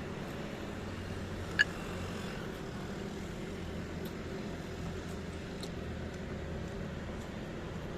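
Steady low background hum, with one sharp clink that rings briefly about one and a half seconds in and a few faint clicks later.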